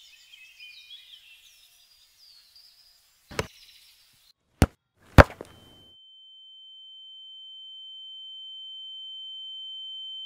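Birds chirping faintly, then three sharp hits, the last the loudest, followed by a steady high-pitched ringing tone that slowly grows louder: a ringing-ears effect after a blow that leaves someone dazed.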